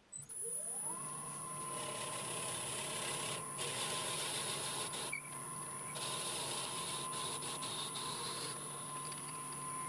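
Wood lathe starting up, its motor whine rising in pitch over the first second and then holding steady. A drill bit in the tailstock chuck bores into the centre of the spinning spalted ash blank, a steady cutting noise under the whine.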